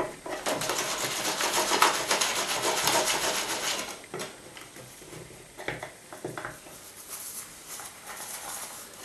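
Wooden spatula scraping around the rim of a Teflon-coated frying pan, loosening an omelette from the non-stick surface. The scraping is dense for about four seconds, then turns quieter, with only occasional small scrapes and clicks.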